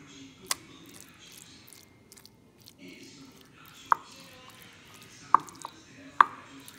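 Meat sauce being spread over lasagna sheets in a glass baking dish: soft, wet squishing, broken by four sharp clicks of the utensil striking the dish.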